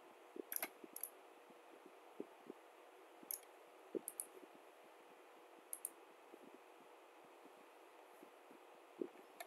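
Computer mouse buttons clicking a few times, some in quick pairs like double-clicks, over a faint steady hiss.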